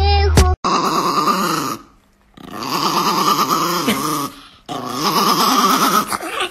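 Small chihuahua growling in three long spells of a second or two each, with short pauses between.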